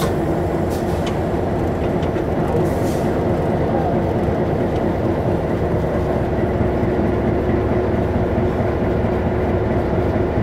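Diesel locomotive running, heard from inside its cab: a steady low drone with a constant hum.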